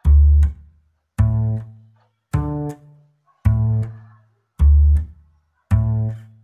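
Background music: six deep bass notes, a little more than a second apart, each starting sharply and fading away before the next.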